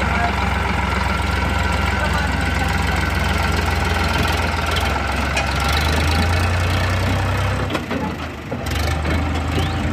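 Sonalika DI 50 tractor's diesel engine running steadily while pulling a loaded soil trailer. Its low note drops away briefly about eight seconds in, then comes back.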